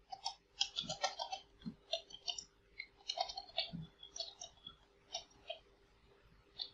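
Computer keyboard being typed on: an irregular run of key clicks that thins out about five seconds in.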